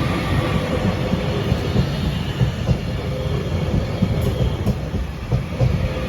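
Class 331 electric multiple unit running past, a steady, loud rumble of wheels on the rails.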